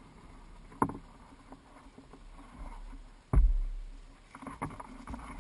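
Knocks and bumps on an Old Town Pack Angler canoe's hull as the drag strap is handled at its end. There is a sharp knock about a second in, and a heavy thump with a low rumble after it a little past halfway, then a few lighter taps.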